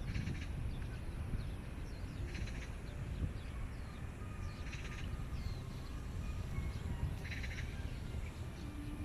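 A bird's short raspy call repeating about every two and a half seconds, with small chirps between, over a steady low outdoor rumble.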